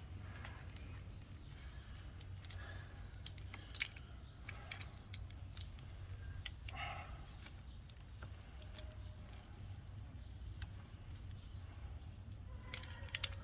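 Faint, scattered metallic clicks and ticks of small latch hardware and hand tools being handled, over a steady low hum.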